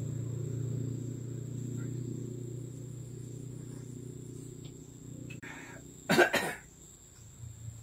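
A person coughs sharply, in two quick bursts about six seconds in, over a low steady hum that slowly fades.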